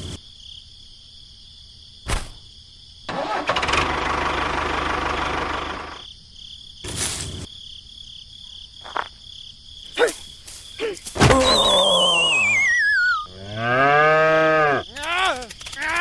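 Steady high insect chirring behind dubbed cartoon-style sound effects: a few single knocks and a burst of rushing noise a few seconds in. Near the end comes a wavering whistle sliding down in pitch, then a run of bouncing, rising-and-falling pitched calls.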